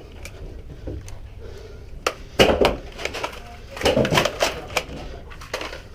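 Several sharp knocks and clatters in two clusters, about two and four seconds in, over a low steady hum.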